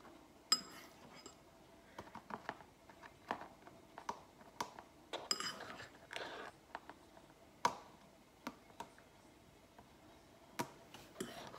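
Metal fork tapping and scraping against a plastic tub while spreading a mashed banana and oat mix over bread crusts: faint scattered clicks with a few sharper taps and short scrapes.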